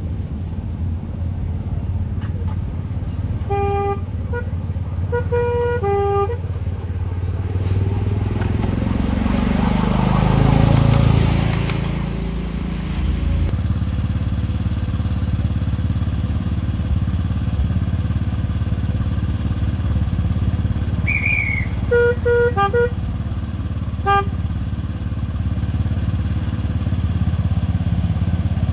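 Miniature railway locomotive's engine running steadily under load, with a two-tone horn giving a few short toots about four seconds in and again about two-thirds of the way through. In between, the engine noise swells up and falls back over a few seconds.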